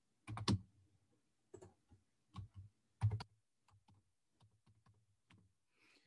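Typing on a computer keyboard: short clusters of key presses, then a few fainter single taps in the second half.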